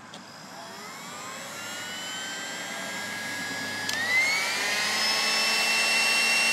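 Heat gun switched on, its fan motor spinning up with a rising whine over a rush of air, heating a solder-seal heat-shrink butt connector. About four seconds in there is a click and the whine jumps higher, then runs steady.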